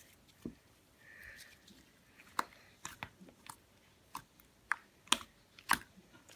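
Pink glitter slime from a Smiggle make-your-own-slime kit being poked and squeezed by hand, giving a string of sharp, wet clicks and pops at irregular intervals, more and louder in the second half.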